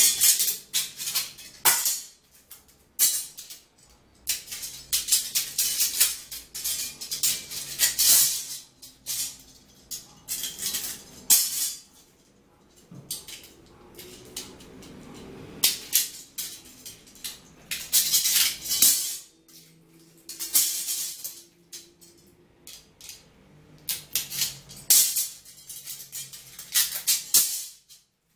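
Metal drawer slides and loose screws clinking and clattering as they are picked up, sorted and set down, in irregular bursts of rattling with short pauses between.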